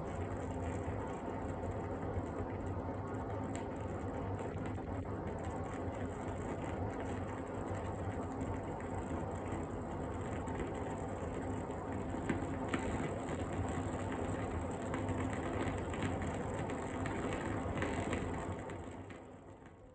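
Wooden wick of a WoodWick candle burning with a steady crackle, a dense run of small pops like a tiny campfire, fading out near the end.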